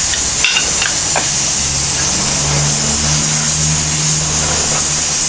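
Silicone spatula stirring thick barbecue sauce in a nonstick saucepan, under a loud steady hiss. A low hum joins about one and a half seconds in.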